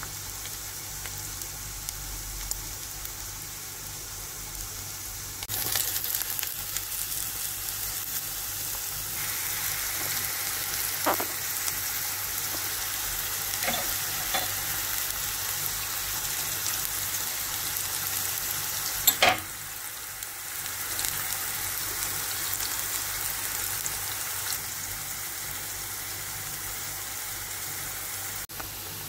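Chopped onions and cubes sizzling in hot oil in a stainless steel pan, the sizzle stepping up about five seconds in. A few sharp clicks and scrapes of a spoon stirring are heard, the loudest about two-thirds of the way through.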